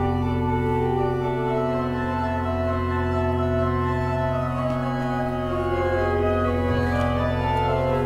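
Electronic organ holding dense sustained chords over a steady low drone, with the upper notes shifting slowly.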